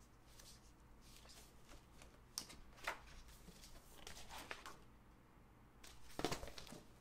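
Picture book being handled and its pages turned: soft paper rustles and light taps, with a louder flurry of paper rustling about six seconds in.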